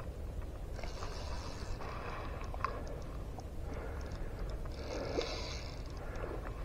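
Fly reel being cranked in short spurts during a fight with a hooked redfish, each spurt a rasping whir about a second long, over a steady low wind rumble on the microphone.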